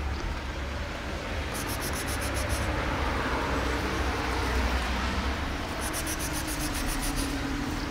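Outdoor background: a steady low rumble, with two short bursts of rapid, high-pitched insect chirping, about nine pulses a second, one a little over a second in and another near the end.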